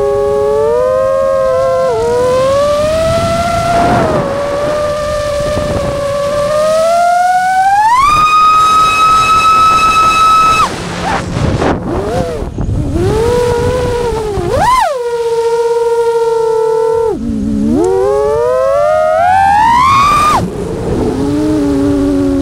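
Nazgul Evoque F6 FPV quadcopter's brushless motors and propellers whining, the pitch rising and falling with the throttle. About a third of the way in the whine climbs to a high steady pitch for a couple of seconds (full throttle), then cuts off sharply into swooping dips and climbs as the throttle is chopped and punched again.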